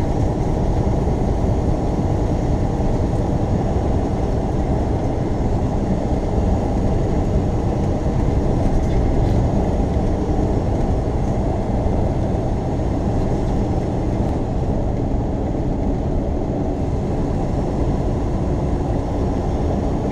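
Steady engine and road noise inside a semi truck's cab cruising at highway speed, an even low rumble with no distinct events.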